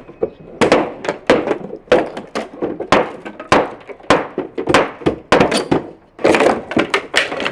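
A hammer striking and breaking up old concrete packed inside a wooden table's basin: a series of sharp knocks at about two a second, coming faster near the end.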